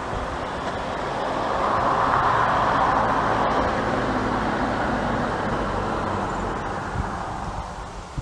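A motor vehicle driving past, its tyre and engine noise growing louder to a peak about two to three seconds in and then fading away.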